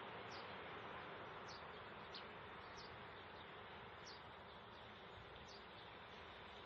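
Faint rural ambience: a steady hiss with short, high, falling chirps repeating roughly once a second. The distant approaching train is not clearly heard.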